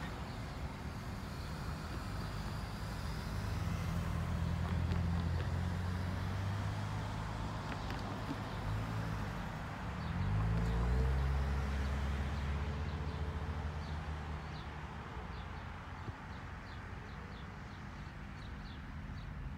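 EMD SW8 diesel switcher's eight-cylinder engine running as it hauls a train of passenger coaches. The engine note shifts in pitch about ten seconds in and gets louder, then eases off.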